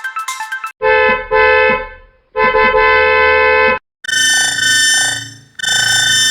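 A Toyota Tacoma pickup's horn, played in edited variations. A short plinking melody ends, then about a second in come two short honks and a long steady honk. From about four seconds in, a higher-pitched, brighter version honks twice, the first one fading out.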